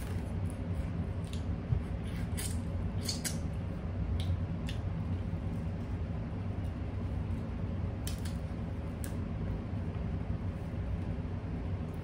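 Eating crab legs at close range: short wet sucking and slurping sounds and small clicks and cracks of shell, scattered irregularly, over a steady low hum.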